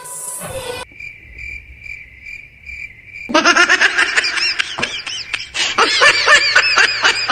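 Cricket chirping in a steady pulse, about two or three chirps a second, the stock cricket effect used for an awkward silence. About three seconds in it gives way to a louder, dense run of high warbling, chirpy sounds.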